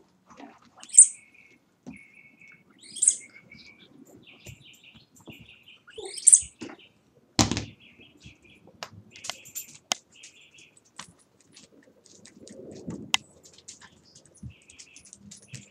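Puppies play-fighting, making high-pitched squeals and short chirping yips. The three loudest squeals come about 1, 3 and 6 seconds in. Sharp knocks and clatter from the scuffle on a hard floor come in between, the loudest about halfway through.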